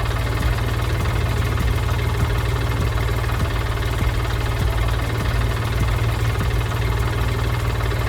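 Heavy construction-vehicle engine running steadily at idle, a low even rumble with no revving.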